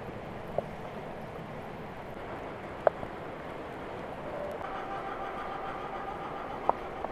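Rain falling on puddled water and wet garden plants: a steady patter, with three louder single drops standing out. A faint steady tone sits in the background for about two seconds near the end.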